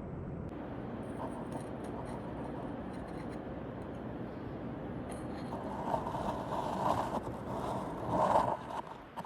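Scraping and rubbing noises, irregular and louder in the second half, over a steady background hiss.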